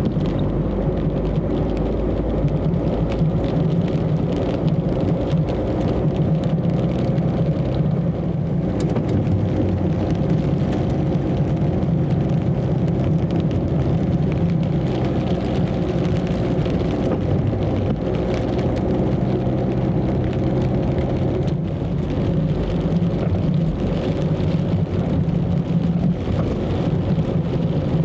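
Car's engine and tyres on a wet road, heard from inside the cabin as a steady low drone, with scattered raindrops ticking on the windscreen.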